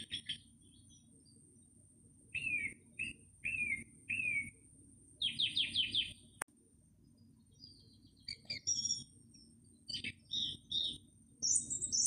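Small birds chirping in short groups: a few separate down-slurred chirps, a quick run of rapid notes, then more varied calls and a high note near the end. A faint steady background hiss lies underneath.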